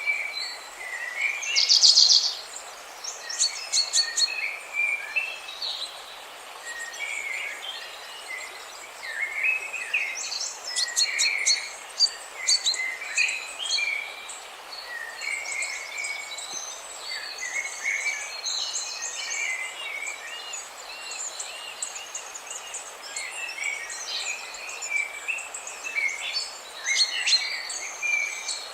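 Several songbirds chirping and calling over one another, with short whistled notes and fast trills. Under them runs a steady hiss.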